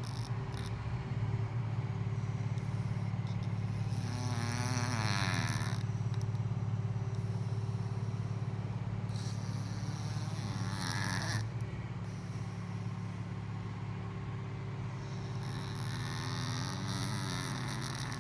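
A sleeping pet snoring, three slow breaths about five to six seconds apart, over a steady low drone.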